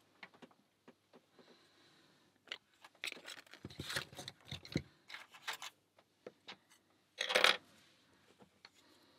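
Metal lock picks and a tension tool working in a pin-tumbler lock: scattered small metallic clicks and scrapes, with a louder metallic clatter about seven seconds in.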